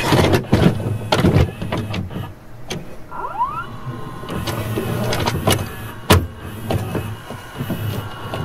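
Sound effects for a tape-deck-style logo intro: mechanical whirring with many sharp clicks and knocks, a short rising whine about three seconds in, and a heavy hit about six seconds in.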